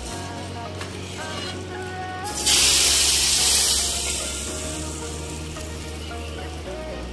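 Hot desi-ghee tadka with whole red chillies hitting the dal: a sudden loud sizzle about two and a half seconds in that fades over about two seconds.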